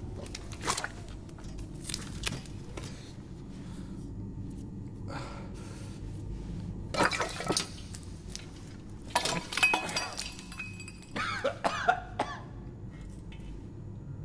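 A man coughing, gagging and gasping in several sudden fits as he pulls a thin tube out through his nose, over a low steady hum.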